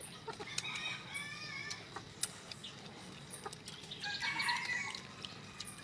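A rooster crowing in the background: one drawn-out crow, then a second, shorter call about four seconds in, with scattered light clicks between.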